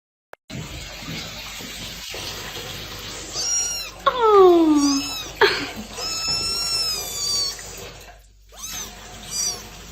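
A domestic cat meowing several times, the loudest a long meow falling in pitch about four seconds in, over a steady background hiss.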